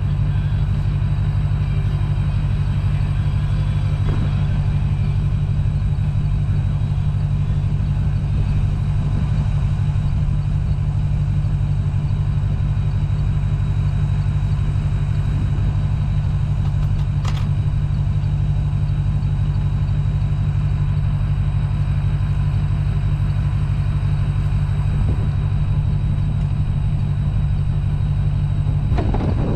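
A vehicle engine running steadily at a constant speed, a loud even drone with no change in pitch.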